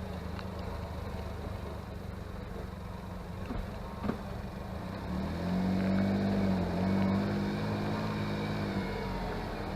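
Honda S660's small turbocharged three-cylinder engine running under way, its note swelling louder from about five seconds in as it pulls harder. There is one sharp knock about four seconds in.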